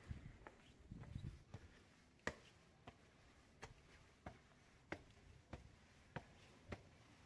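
Faint footsteps on hard ground: sharp, evenly spaced steps at a walking pace, about three every two seconds.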